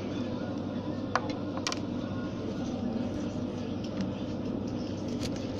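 Steady background hum of a shop interior, with two short clicks about a second and a half in.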